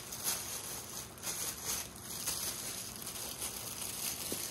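Wrapping on a rolled diamond painting kit rustling and crinkling on and off as it is handled and opened.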